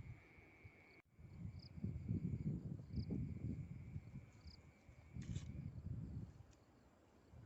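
Frogs croaking in runs of rapid low pulses, each run lasting a second or two, over a steady high-pitched insect trill.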